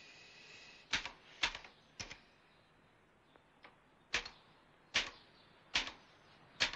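Typewriter keys struck slowly one at a time: about seven sharp clacks at uneven intervals, with a pause in the middle.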